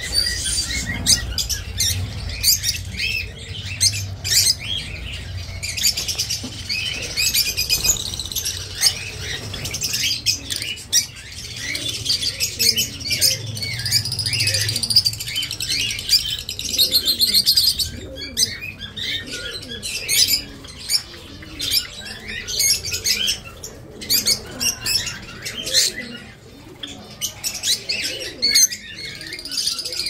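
A cageful of peach-faced lovebirds chattering together: many overlapping high chirps and squeaks, with scattered sharp clicks, over a low hum.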